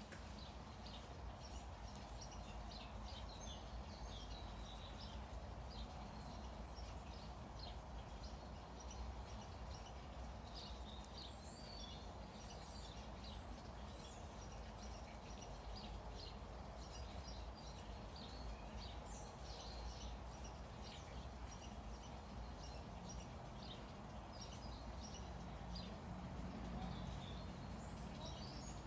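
Outdoor ambience of small birds chirping and twittering on and off, over a steady low background rumble, with a single sharp click about eleven seconds in.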